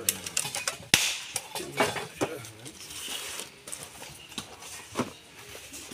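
A coconut being cracked open by striking it: one loud sharp crack about a second in, then several lighter knocks.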